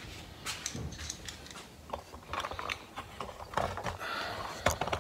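Clicks, knocks and rattles of a plastic motorcycle side cover and its fastener being handled and worked into place, with a quick run of clicks about halfway through, a short scrape near the end and a sharp click just before it ends.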